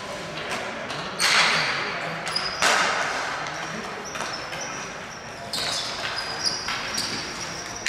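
Ball hockey play: about four sharp clacks of sticks and ball, each fading with an echo, among short high squeaks of sneakers on the court floor.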